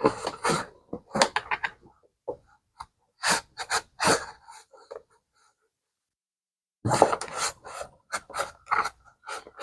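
Cloth rag scrubbing the inside of a leather bag in short, quick rubbing strokes, with a pause of a couple of seconds a little past halfway.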